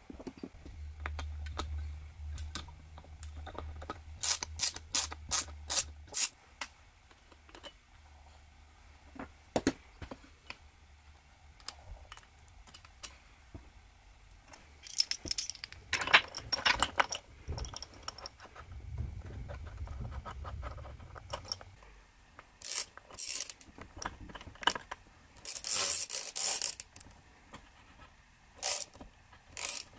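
Socket ratchet clicking in short runs, and metal tools clinking on the 1964 Homelite XL-100 saw's flywheel and housing, in separate bursts with pauses between.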